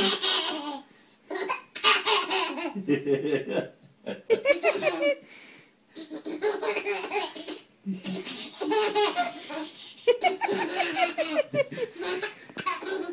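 A baby's belly laughter in repeated bouts with short pauses between, from being tickled as a cat licks its toes.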